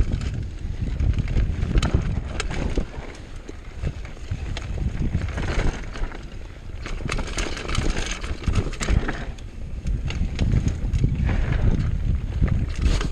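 Mountain bike riding down a rough trail, with wind buffeting the microphone as a heavy rumble. The tyres hiss over loose ground, and the frame and chain rattle with frequent sharp clicks and knocks.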